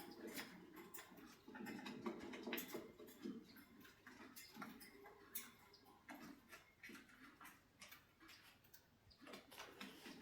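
Faint irregular clicking and scratching from cockatiels, with a soft low murmur during the first few seconds.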